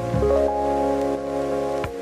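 Background music: held chords over a low bass, changing chord shortly after the start and again near the end.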